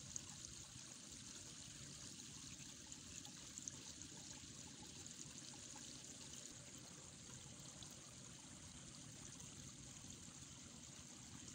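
Near silence: faint steady outdoor background hiss, with a couple of soft ticks about a second and four seconds in.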